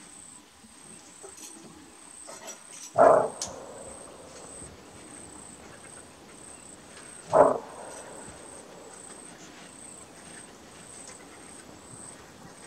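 Greater kudu giving its bark alarm call: two short, loud barks about four seconds apart. A steady high insect trill runs underneath.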